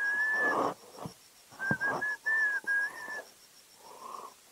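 A person whistling a tune in short held notes: one note at the start, a pause, then a run of several notes. An insect chirps steadily in the background, about six pulses a second.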